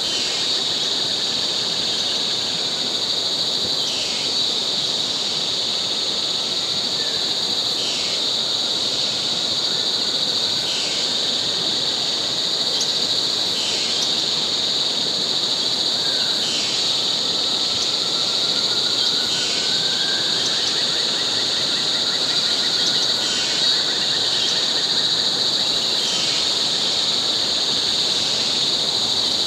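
Tropical rainforest insect chorus: a steady, loud, high-pitched drone, with a second call repeating about every three seconds and faint rising and falling whistles underneath.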